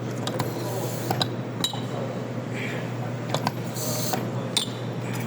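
Scattered clinks of cups and crockery over a steady low hum, with a brief hiss about four seconds in.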